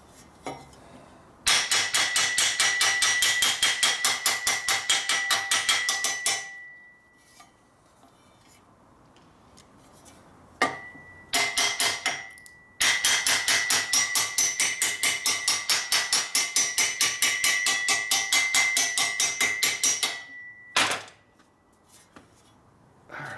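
Steel hammer tapping rapidly on the end of a motorcycle exhaust head pipe against a vise, about five or six light ringing blows a second, in three runs with pauses between, to swage the pipe back to round.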